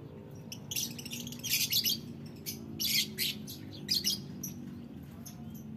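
Caged lovebirds chirping and shrieking: a flurry of sharp, high, rapid calls that is loudest in the middle, over a steady low hum.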